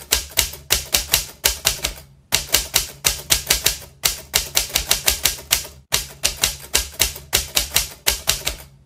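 Typewriter sound effect: rapid keystroke clicks, about four or five a second, over a low hum. The clicks pause briefly three times, as the lines of a quotation type out on screen.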